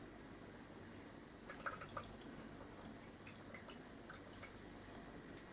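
Faint, irregular drips of herbal infusion trickling slowly through a clogged filter into the liquid collected below.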